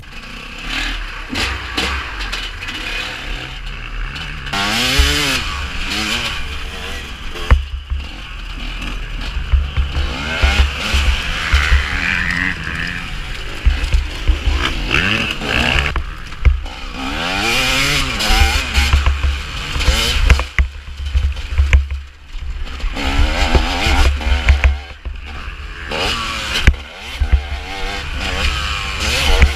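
The two-stroke engine of a 2015 TM 250 EN enduro motorcycle being ridden hard, revving up and falling back again and again through the gears, with rough wind rumble on the microphone.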